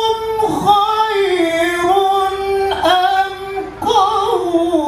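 A man reciting the Quran in the melodic tilawah style into a microphone, holding long, high, wavering notes. There are short breaks for breath, and the line steps down in pitch near the end.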